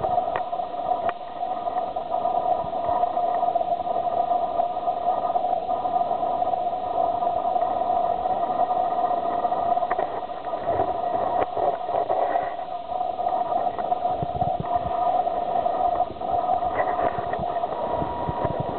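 Steady mechanical hum made of several steady tones over a noisy hiss, with a few scattered clicks, stopping abruptly at the end.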